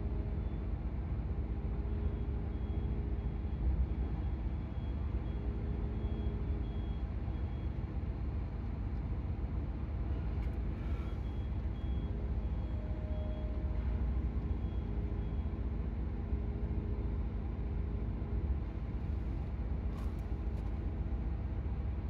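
Steady low engine rumble of cargo-handling vehicles, with a reversing alarm beeping at about two beeps a second in two spells, and a few faint knocks.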